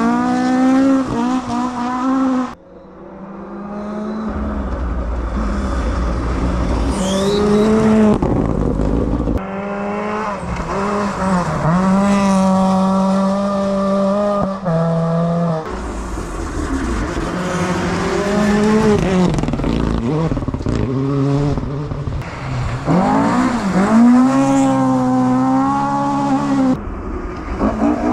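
Rally cars passing one after another, their engines revving hard and rising and falling in pitch through gear changes. The sound cuts abruptly from one car to the next several times.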